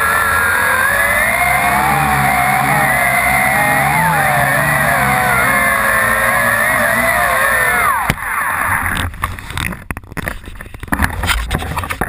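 Tarantula X6 quadcopter's four motors and propellers whining, heard from the camera mounted on the drone, several pitches wavering up and down together as the throttle changes. About eight seconds in the motors spin down abruptly, followed by scattered knocks and handling noise.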